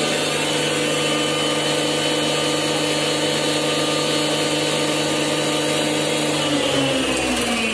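Electric turmeric grinding machine running steadily. About six and a half seconds in it is switched off at the stop button and begins to spin down, its pitch falling.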